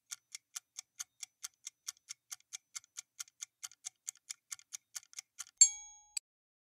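Quiz countdown-timer sound effect: a clock ticking steadily, about four to five ticks a second. Near the end a single bright chime, the loudest sound, marks the correct answer being revealed. It cuts off abruptly with a click.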